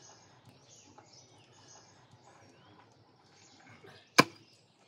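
Faint birds chirping, then one sharp, loud chop about four seconds in as a blade strikes into a beef rib cage being butchered.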